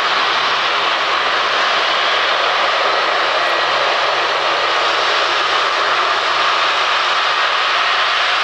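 Jet airliner engines running at high power during a runway departure, heard up close as a loud, steady, even noise.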